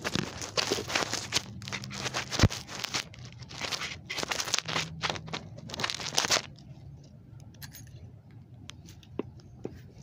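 Close crinkling and rustling handling noise for about six seconds, then quieter with a few faint clicks.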